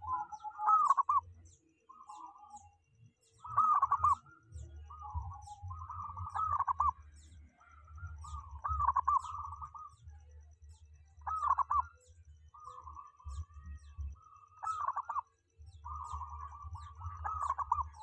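Caged zebra dove (perkutut) singing: its husky cooing phrase, a quick run of notes, repeated about every two seconds with short pauses between.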